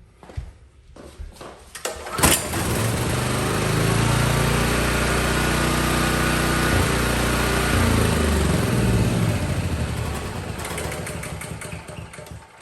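Honda GX390 single-cylinder generator engine pull-started by hand. It catches with a sharp burst about two seconds in, runs steadily for several seconds and then dies away near the end. It now starts and runs, a sign that spark has been restored after the fault in the switch or oil sending unit was fixed.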